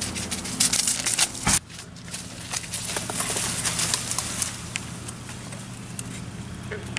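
Hurried footsteps running over grass, then leaves and branches rustling and snapping as two people push into a bush and crouch, over a steady low hum. The footsteps stop abruptly about a second and a half in, where the rustling begins.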